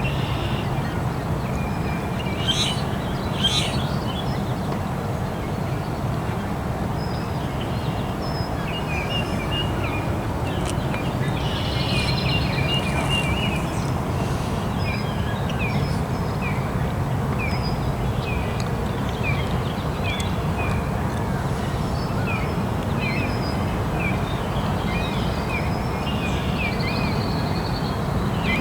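Birds chirping: short high calls, repeated at about one a second through the second half. Under them runs a steady low background rumble.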